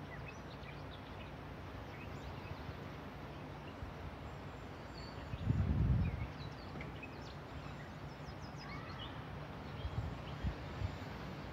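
Outdoor background noise at a fishing spot, with faint scattered bird chirps and a brief low rumble about halfway through.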